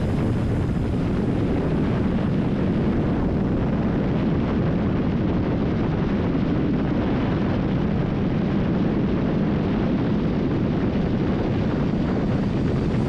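Motorcycle on the move: steady engine noise mixed with wind rush over the microphone.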